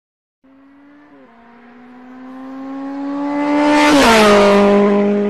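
A fast car passing by: its engine note grows steadily louder, then drops sharply in pitch as it passes, about four seconds in.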